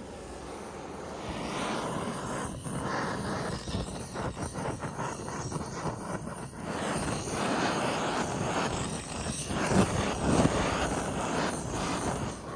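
Handheld butane gas torch burning with a rushing, hissing flame as it is passed over a whole lamb carcass, the noise swelling and dipping as the torch moves.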